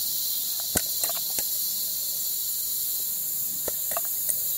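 Steady, dense, high-pitched chorus of insects such as crickets, with a few short clicks and taps scattered through it, the sharpest about a second in.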